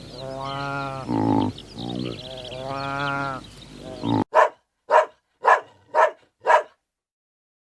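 Sheep bleating several times, drawn-out calls against a light outdoor background. Then, after an abrupt cut, a dog barks five times in quick succession, about two barks a second.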